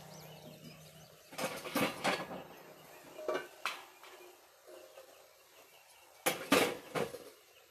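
Metal lid lifter scraping and clanking against the lid of a cast-iron Dutch oven as the lid is hooked and lifted. There is a cluster of metal clanks about a second and a half in, two lighter knocks a couple of seconds later, and the loudest clanks about six seconds in.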